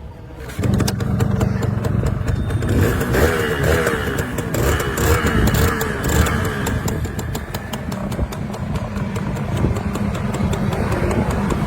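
A Yamaha two-stroke motorcycle engine comes in abruptly just over half a second in and then runs steadily with a rapid crackle from the exhaust.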